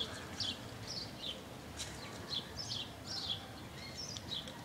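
Small birds chirping and twittering, many short high notes following one another quickly, over a steady background hiss.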